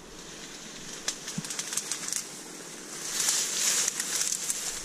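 Dry reed stalks and grass rustling and crackling as someone pushes through a reed bed on foot, with many small snaps and a louder stretch of rustling about three seconds in.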